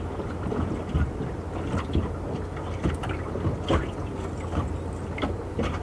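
Small waves lapping against a small moored fishing boat, with wind on the microphone giving a steady low rumble and about half a dozen light, irregular knocks.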